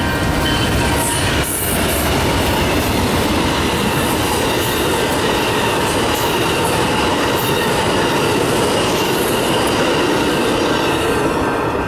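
Amtrak passenger train, a Genesis diesel locomotive hauling double-deck Superliner cars, passing close by at speed: a loud, steady rush of wheels on rail with a thin, steady high whine over it.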